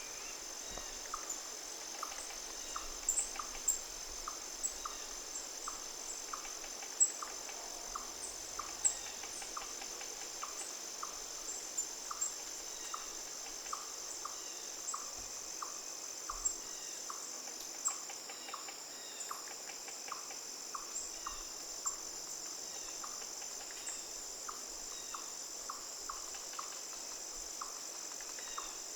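Chorus of crickets and other insects: a steady high buzzing trill, with a lower chirp repeating about twice a second and scattered short higher chirps.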